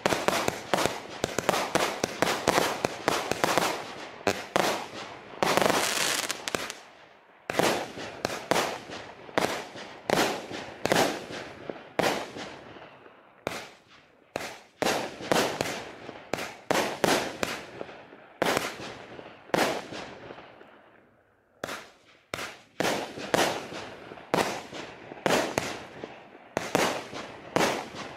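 Nico Cosmic Smash 104-shot fireworks battery firing: a rapid string of launch bangs and aerial bursts, several a second, with a few brief lulls.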